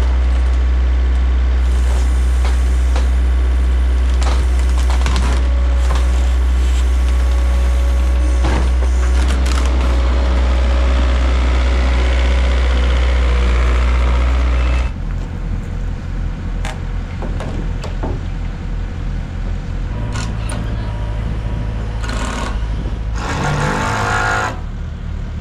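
Diesel engine of an IHI CL35 compact track loader running close by, a steady heavy drone. About fifteen seconds in, the sound drops to a quieter, lower engine idle with scattered clicks and a short rattle near the end.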